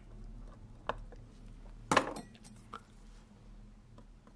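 A few small, sharp metallic clicks and clinks from steel tweezers working the setting parts of a vintage Seiko 62MAS watch movement in its movement holder. The loudest clink, with a brief ring, comes about two seconds in.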